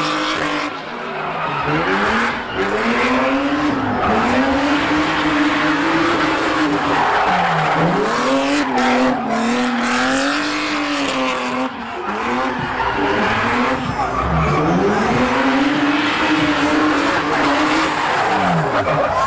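Drift car (BMW E36 chassis under a 1967 Mustang body) sliding sideways: its engine is held high on the throttle, the revs dropping sharply and climbing back about four times, with the rear tyres screeching under wheelspin.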